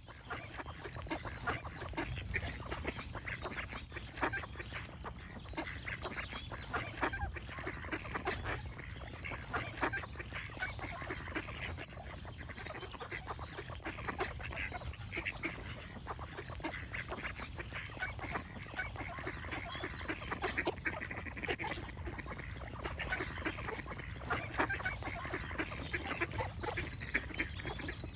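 A flock of ducks quacking, many short calls overlapping without a break, over a steady low rumble.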